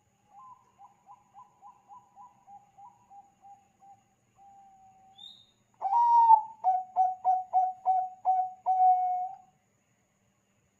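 Zebra dove (Bangkok perkutut) cooing. A faint run of quick, evenly spaced coo notes comes first. About six seconds in, a much louder phrase follows: a rising opening note, a rapid string of staccato coos, and a long held final note.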